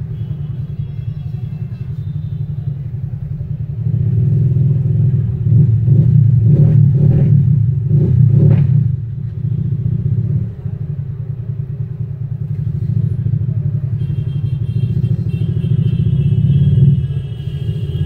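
Steady low background rumble that grows louder for about five seconds from about four seconds in, then settles back. Faint music-like tones come in near the end.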